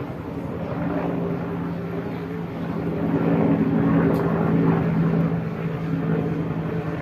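Helicopter running, a steady low engine hum under a rapid even rotor beat, swelling louder for a couple of seconds in the middle.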